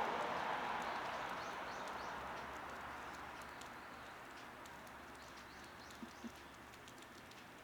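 Small garden birds chirping faintly with short high calls, over a broad rushing background noise that fades away over the first few seconds. Two short low knocks come close together near the end.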